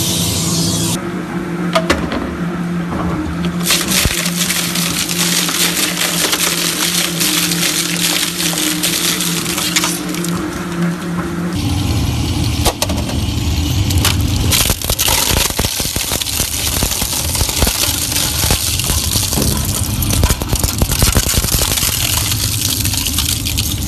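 Industrial crushing and shredding machines running and breaking up material, with steady machine hum under dense cracking and crunching. The sound changes abruptly a few times as one machine gives way to another.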